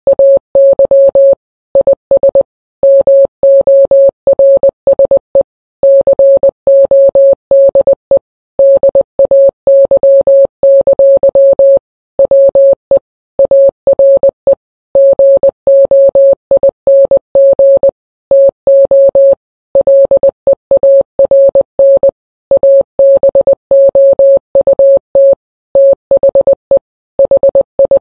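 A Morse code message sounded as a single steady beep tone, keyed on and off in short and long beeps (dots and dashes), with short pauses between letters and longer ones between words.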